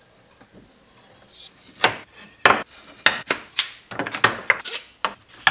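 Wooden strips knocked together and set down on a workbench while being laid into a glue-up. After about two seconds of near quiet comes an irregular run of sharp knocks and clacks.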